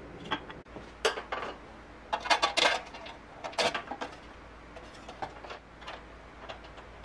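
Hands handling and fitting a small wooden link with metal hardware: a string of clicks and clatters of wood and metal. The sharpest come as a cluster about two and a half seconds in and a single knock near three and a half.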